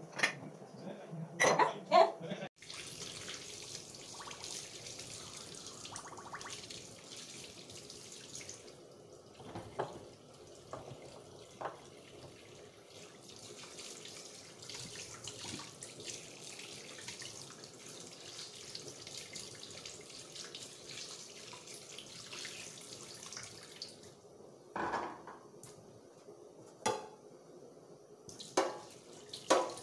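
Kitchen tap running steadily into a stainless steel sink while things are rinsed under it. Short clatters of dishes and utensils come at the start and several more near the end, after the water stops.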